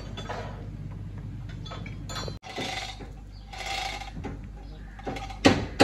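Metal clinks, scrapes and knocks of hand work on a Honda Civic engine being fitted under a chain hoist, with one sharp, loud knock about five and a half seconds in.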